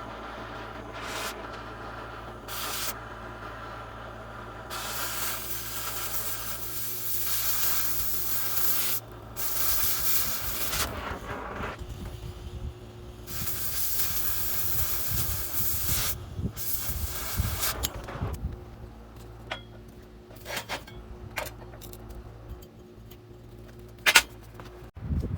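Electric arc welding on steel angle iron: several bursts of hissing crackle, each a few seconds long, over a steady hum. Later come scattered clicks and knocks of metal being handled.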